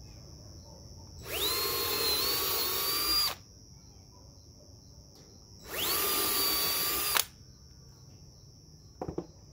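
Cordless drill boring two pilot holes through a pine board: two runs of about two seconds and a second and a half, each spinning up quickly to a steady whine, then stopping. A brief knock near the end.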